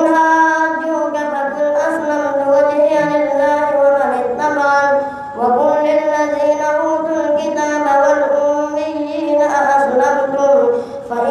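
A boy's high voice reciting the Quran in a melodic, chanted style, holding long wavering notes as he leads the congregational prayer. He pauses for breath about five seconds in and again near the end.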